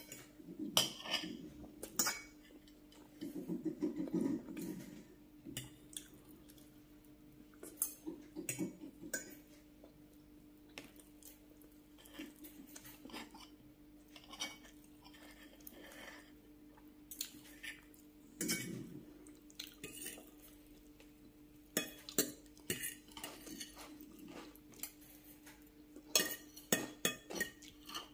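Metal knife and fork clinking and scraping against a glass bowl and glass plate in irregular, sharp clicks, over a faint steady hum.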